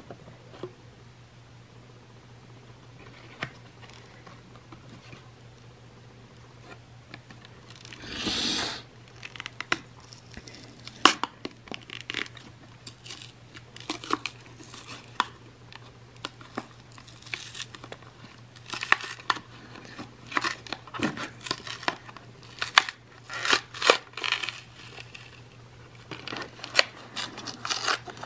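Plastic blister packaging and its card backing being torn and pried open by hand. It crinkles and crackles in irregular bursts, with one longer tear about eight seconds in.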